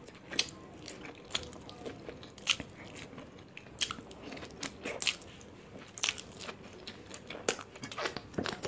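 Close-miked eating sounds: biting into and chewing soft veg momos (dumplings), heard as an irregular scatter of short, sharp wet smacks and clicks.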